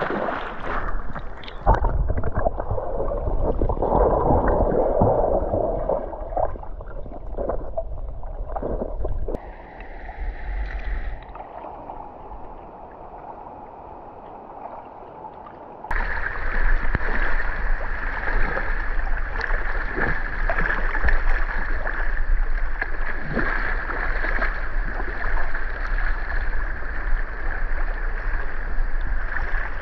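Water splashing and sloshing in irregular bursts, then steady rushing water.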